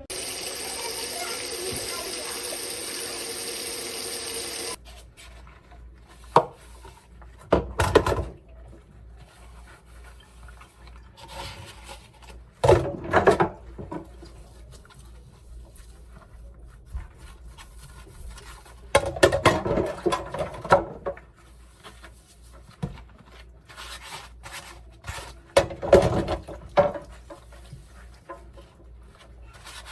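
Water running steadily for about five seconds and then shut off abruptly, followed by scattered short clatters and rubbing sounds of things being handled.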